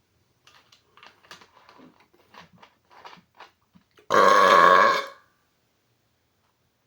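A man's loud, pitched burp lasting about a second, some four seconds in. Before it there are a few faint clicks and small noises.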